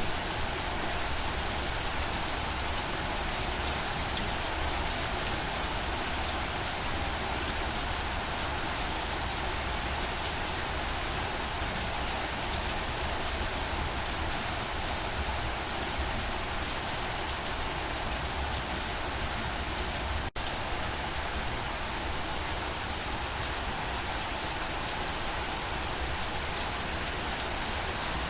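Steady rain falling, an even hiss of many drops on a surface, with a low rumble underneath. It cuts out for a split second about twenty seconds in, then carries on unchanged.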